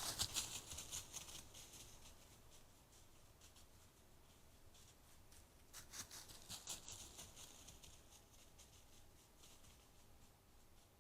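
Near silence: quiet forest ambience with scattered faint ticks and rustles, a little louder in the first second and again about six seconds in.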